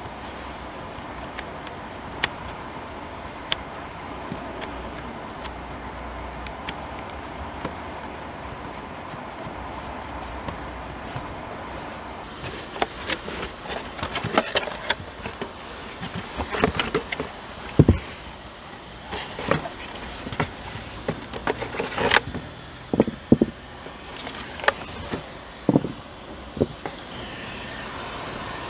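Steady background noise with occasional single clicks, then from about twelve seconds in a run of sharp knocks, rustles and clicks as a cardboard box is opened and a handheld vacuum's plastic parts are taken out and handled.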